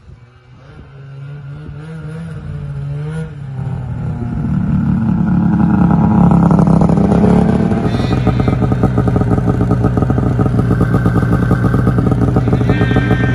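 Snowmobile engine getting louder and rising in pitch over the first several seconds, then running steadily at high revs.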